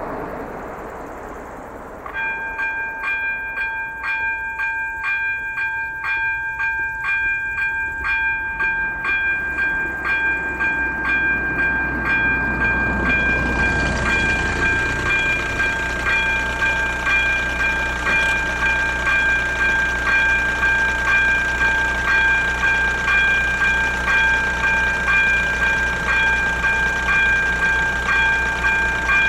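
Level-crossing warning bell (AŽD 97 signal with ZV02 electronic bell) starts about two seconds in and rings on evenly, about three strikes every two seconds with a held ringing tone: the crossing has been activated for an approaching train. A passing car fades away at the start, and a low engine rumble comes in about halfway.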